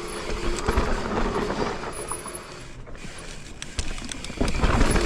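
Mountain bike being ridden down a dirt singletrack: tyres rumbling over dirt and roots, with chain and frame clattering over the bumps. Under it runs a steady buzz from the rear hub freewheeling while coasting.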